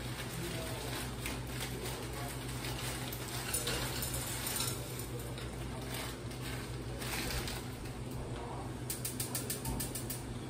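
Kitchen handling sounds: pots and utensils knocked and shifted about, over a steady low hum, with a quick run of about ten sharp clicks near the end.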